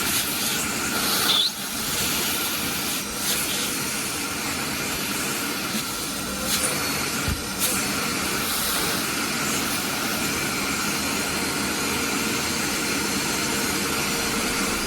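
Kärcher WD 4 S wet/dry vacuum cleaner running steadily with a whooshing hiss and a faint steady whine, with a few brief knocks of the hose or nozzle.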